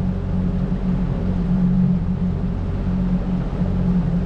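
Motorboat engine running at a steady speed, a low even drone with a rushing hiss over it.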